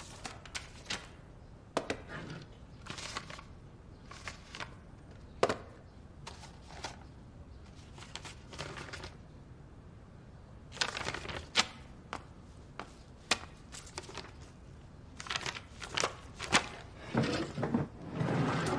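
Sheets of paper rustling and being handled, with scattered light knocks and clicks; the rustling comes in busier spells past the middle and near the end.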